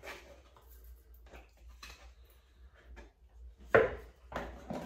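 Spatula scraping soft cream cheese out of tubs into a mixing bowl: quiet scrapes and light taps, with one sharp knock of utensil against bowl near the end.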